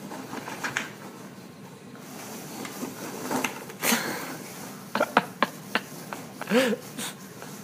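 Styrofoam packing peanuts rustling, crackling and squeaking as a puppy burrows through them in a cardboard box. There is a quick run of sharp clicks about five seconds in, and a short squeak that rises and falls near the end.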